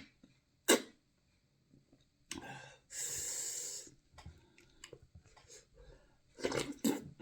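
Close-miked eating mouth sounds from someone eating fufu: a sharp smack under a second in, then a hissing suck or slurp lasting about a second, and more smacking sounds near the end.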